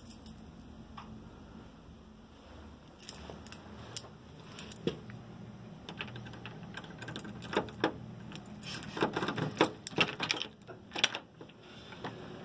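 A ring of keys jangling and a key being worked into a doorknob lock and turned: a few scattered clicks at first, then a dense run of metallic clicks and rattles from about halfway through that stops shortly before the end.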